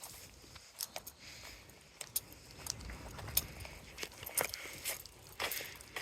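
Light metallic jingling and irregular clicks of a dog's leash and tags as the dog is walked, along with footsteps.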